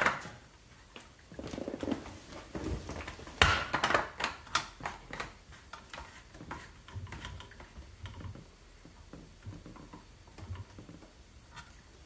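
Light plastic clicks and knocks as the threaded plastic cap is screwed by hand onto a reverse osmosis membrane housing and the housing is handled, with one sharper knock about three and a half seconds in.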